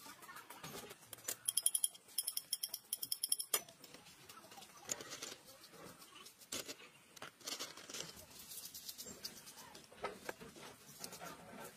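A brush scrubbing small rusty bolts in a plastic tray of liquid, with scratchy strokes and light clicks of metal parts. About a second in, a rapid run of high chirps lasts about two seconds and is the loudest sound.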